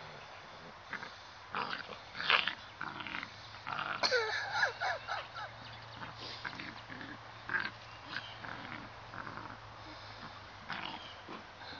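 A six-week-old puppy and an adult white German shepherd play-fighting: scattered short, high yips and squeals with snuffling and mouthing, thickest about four to five seconds in.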